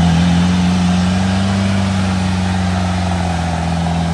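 Off-road 4x4's engine running loud at steady raised revs, its pitch holding level.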